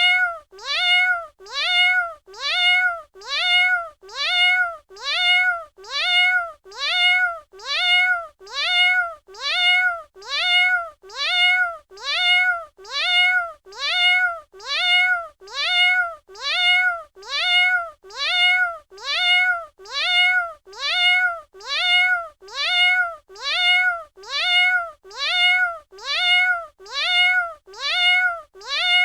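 A domestic cat meowing over and over: the same short meow, rising then falling in pitch, repeated about once every 0.8 seconds and sounding alike each time.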